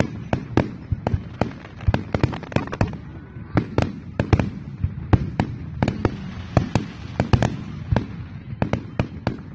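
Aerial fireworks bursting in quick succession: an irregular run of sharp bangs and cracks, several a second.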